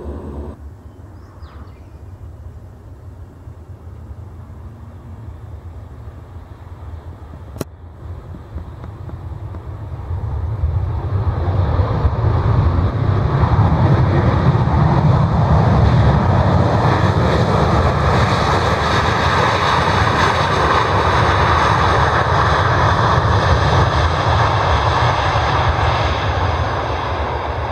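Boeing 737-800's CFM56 jet engines at takeoff thrust during the takeoff roll. The noise grows loud about ten seconds in and holds as a steady deep rumble with a hiss above it, easing near the end. There is a single sharp click partway through the quieter first part.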